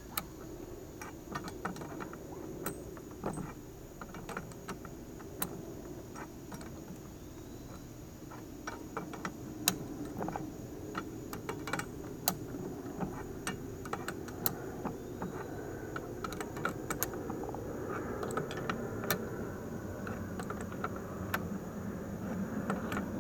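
Irregular light metallic clicks of a wrench and nut being turned by hand along a threaded rod axle, over a steady low hum.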